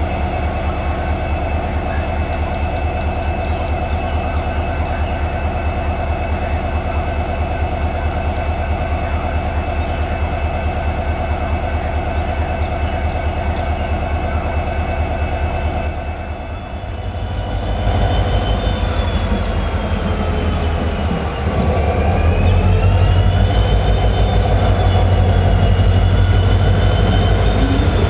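EMD WDG4 diesel locomotive's two-stroke V16 engine running steadily. About two-thirds of the way through it dips briefly, then comes back louder and steps up again, as a high whine that rises and falls in pitch joins it.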